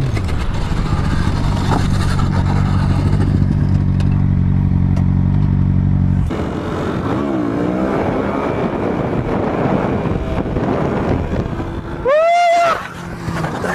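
Sport motorcycle engine settling from higher revs to a steady idle. About six seconds in the sound changes to a noisier road sound with a faint engine. Near the end comes a brief loud pitched tone lasting about half a second.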